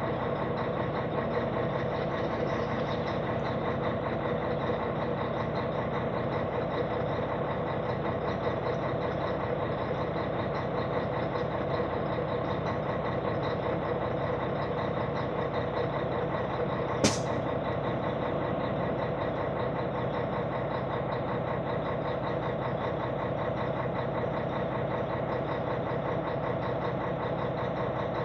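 Heavy truck's diesel engine idling steadily, heard from inside the cab, with one sharp click about seventeen seconds in.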